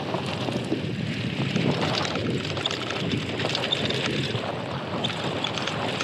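Wind buffeting the action camera's microphone over the tyre noise of a mountain bike riding along a road, with light rattling from the bike.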